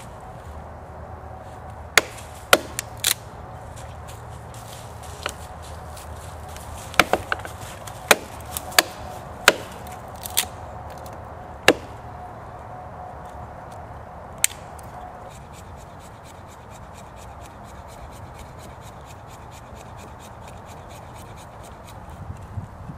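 A small axe striking and splitting dry sticks against a log: about a dozen sharp wooden knocks at irregular spacing, a few coming in quick pairs, and one more a couple of seconds after the rest.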